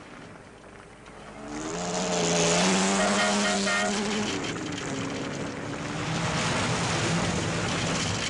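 Rally car engines running at high revs as cars pass on a loose dirt road, over a broad rushing noise. The sound is faint at first, then an engine note rises about a second and a half in and holds. A second, lower engine note follows in the second half.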